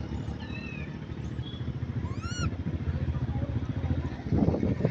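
Rhesus macaque giving a short, arched coo call with ringing overtones about two seconds in, after a fainter falling call early on, over a steady low rumble.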